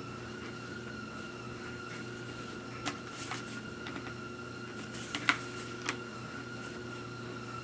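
Handling noise from a plastic dual-sport motorcycle helmet being turned over in the hands: a few light clicks and taps of the shell and peak, the loudest a little after five seconds in, over a steady hum.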